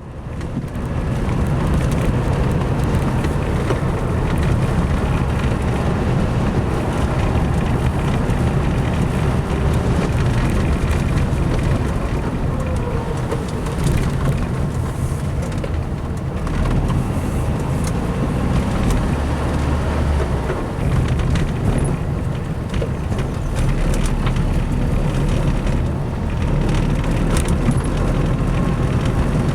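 A motor vehicle running steadily, a loud low engine drone with a haze of road or wind noise.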